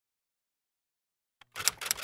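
Silence, then about one and a half seconds in a fast run of typing clicks begins: a typewriter sound effect.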